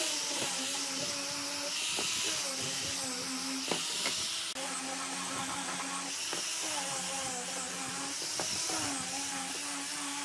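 An electric power tool motor running steadily with a strong hiss. Its whine dips slightly and recovers several times, with a few light knocks.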